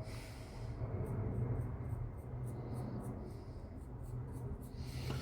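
A paintbrush scrubbing black weathering powder onto a plastic scale-model part: soft, quick, repeated scratchy strokes, several a second, over a steady low hum.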